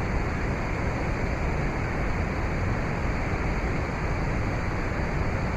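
Steady, even rushing noise with a heavy low rumble and no breaks or distinct events.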